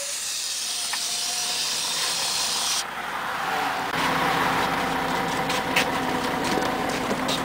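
Inside a Scania CN113CLL city bus: a steady hiss of air that cuts off sharply about three seconds in, then the bus's diesel engine running, with light clicks and rattles from the cabin.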